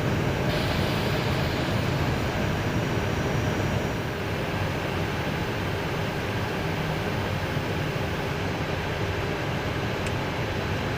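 Steady cockpit noise of an Airbus A320 descending on approach: a constant rush of air with the flaps at 1. It drops slightly in level about four seconds in.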